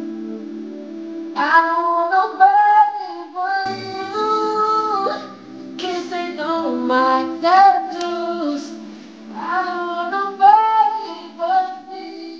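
A man singing high, drawn-out R&B vocal runs over a backing track of held chords, in several phrases with short breaks between them.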